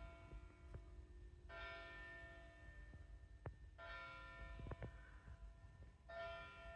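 Faint church bell tolling: three strokes a little over two seconds apart, each ringing on and fading before the next.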